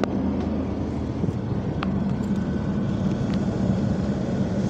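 Car engine running steadily at low speed, heard from inside the vehicle's cabin, with a few faint clicks.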